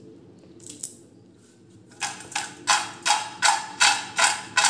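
Crisp fried potato chip rolls tossed in a stainless steel bowl, rattling against the metal with each toss, about three tosses a second, starting about two seconds in.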